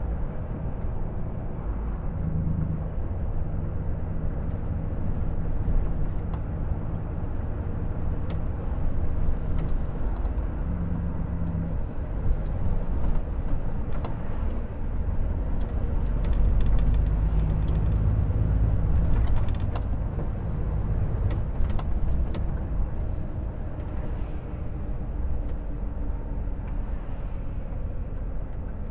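Volvo FH 460 truck's six-cylinder diesel running steadily while driving, a continuous low drone that grows louder for a few seconds a little past halfway through.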